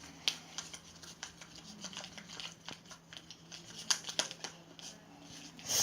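Liquid soap being stirred in a container to work it into a foam, the stirring utensil scraping and clicking irregularly against the sides, with a louder knock near the end.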